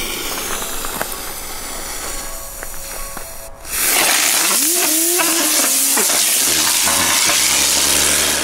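Weco Cranky Chick ground spinner fireworks hissing as they burn in a metal barbecue grill pan. About four seconds in the hiss turns much louder, and a whistling tone rises and holds for about a second.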